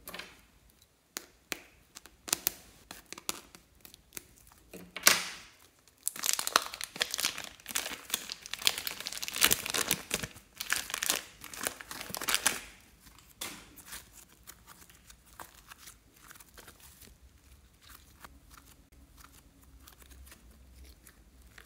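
Blue slime being squeezed out of a plastic piping bag and pulled free by hand, with the plastic bag crinkling and the slime crackling. The crackling is scattered at first, comes thick and loud through the middle, then thins out near the end.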